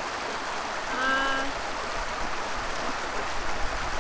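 Creek water running steadily, with one short, flat bleat from a Spanish goat kid about a second in.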